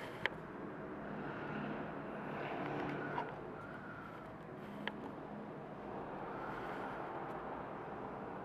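Two small cooling fans fitted to an opened 12 V, 60 A automotive power supply, running with a steady whoosh of air that swells and eases slightly, and a few small clicks. They are quiet replacements for the supply's original noisy fan, and here they run almost silently.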